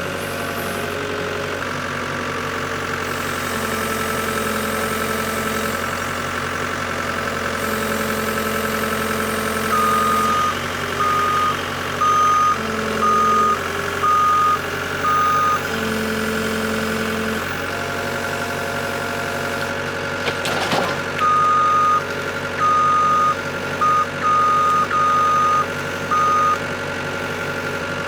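A steadily running engine with a vehicle's reversing alarm beeping in two runs of about six beeps each, several seconds apart. A single knock about two-thirds of the way through.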